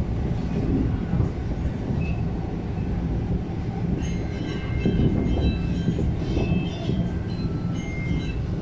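MTR East Rail Line MLR electric train heard from inside the car: a steady low rumble, with thin high squealing tones coming in about halfway through and lasting a few seconds.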